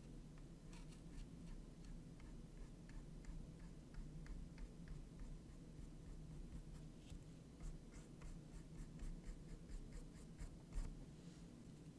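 Flat paintbrush stroking and dabbing paint onto a small textured canvas: faint scratchy bristle strokes in quick irregular runs, busier in the second half, with one louder knock near the end.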